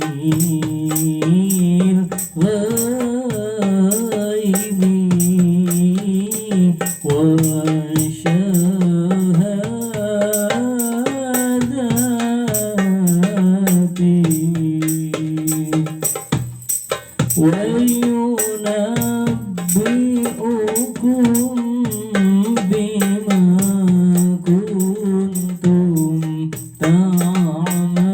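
Islamic qasidah (sholawat) sung by a male voice in long, wavering, ornamented lines over a steady beat of jingling hand percussion. The voice breaks off briefly about two-thirds of the way through and again near the end.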